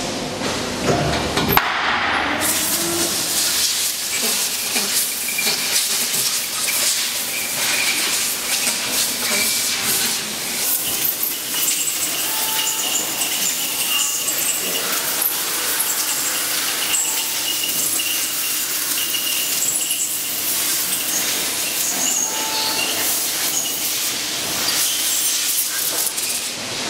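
Compressed air hissing from an air blow gun at the open mold of an LSR injection molding machine, blowing the molded silicone seals free, in steady uneven gusts over factory noise.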